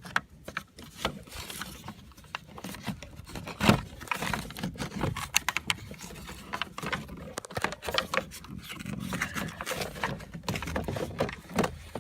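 Hands working loose plastic pickup-door trim parts held by little tabs: a run of irregular clicks, knocks and scrapes, with one sharper knock a little under four seconds in.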